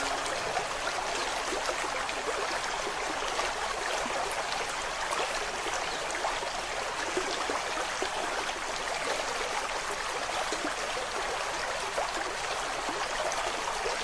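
Steady flowing stream water, an even rush with faint trickling.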